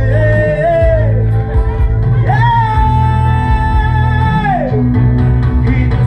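A man singing through a microphone and PA over loud amplified backing music with a heavy bass. About two seconds in he holds one long note for a couple of seconds before letting it fall away.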